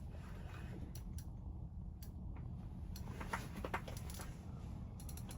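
Ice-fishing reel and heavy rod working against a hooked sturgeon: scattered small mechanical clicks and creaks, busiest about three seconds in, over a steady low rumble.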